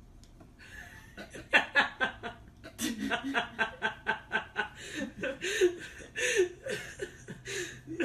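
Human laughter, quiet and breathy, in quick pulses of several a second, starting about half a second in.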